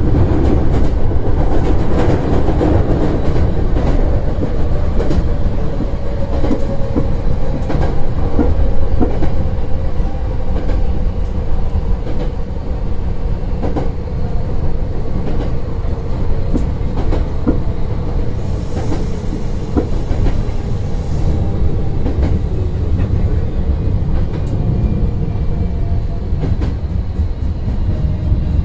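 Hankyu electric train heard from inside the cab, rumbling along the rails with a steady stream of wheel clicks over rail joints and points. A faint tone falls slowly as the train slows on the approach to its terminal platforms.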